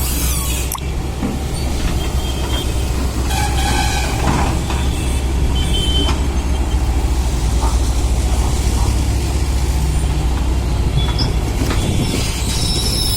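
Giant vibratory poker machine running on a construction site: a loud, steady deep drone, with a few brief higher squeals and hisses over it.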